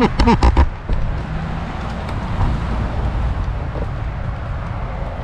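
Road traffic on a nearby street: a steady low rumble of passing cars. A brief voice is heard in the first second.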